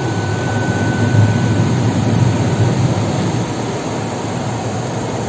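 Rotating brushes and water of an automatic car wash scrubbing over the car, heard from inside the cabin as a steady rushing, rumbling drone. A steady high tone from the car's parking sensors, set off by the brushes and spray, stops about two and a half seconds in.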